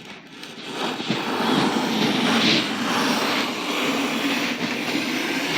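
Utility blade of a tape-measure drywall cutting tool being drawn across drywall, a steady scraping rasp that builds up in the first second and keeps going.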